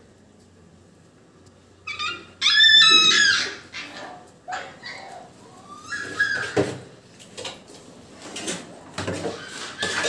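A crowd of young puppies whining and yelping as they clamour for food, with a loud burst of high-pitched yelps about two seconds in and then scattered whines.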